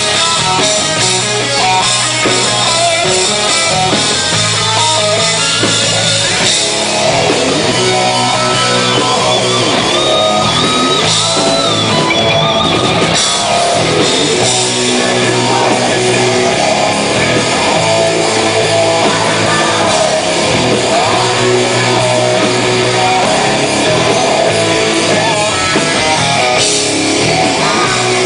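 Hard rock band playing live: distorted electric guitars over a drum kit, with a held high guitar note in the middle.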